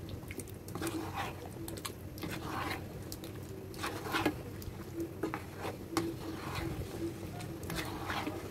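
Silicone spatula stirring thick chicken curry gravy in a pan: wet squelching and scraping strokes at irregular intervals.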